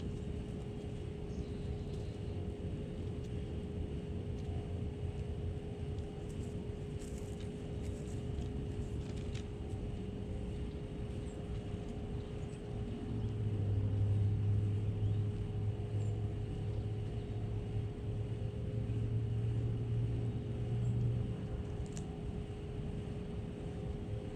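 Steady low outdoor rumble with a constant hum running through it. A deeper drone swells in for about eight seconds midway through, then fades.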